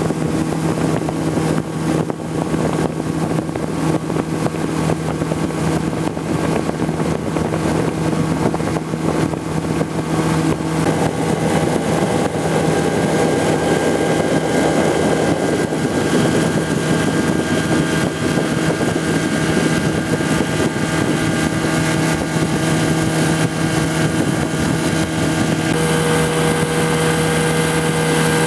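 Motorboat engine running steadily under way, a constant droning note over the rush of wind and water; the engine note shifts slightly near the end.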